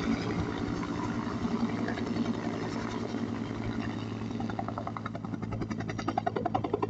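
Helicopter running with a steady low engine hum; about two-thirds of the way in, the rhythmic beat of its rotor blades comes in and grows louder.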